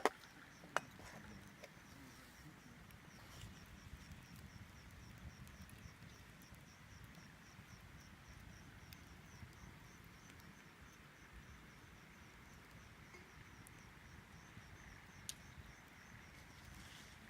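An insect chirping in a steady, even rhythm, a few high chirps a second, over a faint low hiss of a campfire burning, with a few sharp snaps from the fire: one just under a second in and one near the end.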